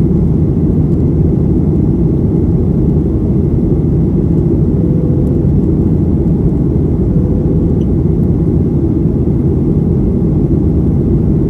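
Steady low rumble inside the cabin of a Boeing 737-800 in flight, its CFM56 jet engines and the airflow over the fuselage running without change.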